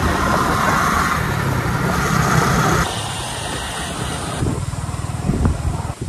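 Motorcycle engine running on the move, with wind rushing over the microphone; the sound changes abruptly about three seconds in and again a second and a half later.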